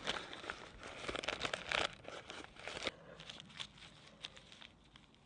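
Crinkling and rustling handling noise, dense and crackly for about three seconds, then thinning to scattered small clicks.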